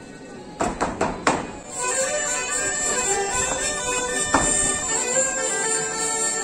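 Four sharp knocks, then about two seconds in a French folk band of bagpipes and hurdy-gurdies strikes up a bourrée. The tune runs over a steady drone.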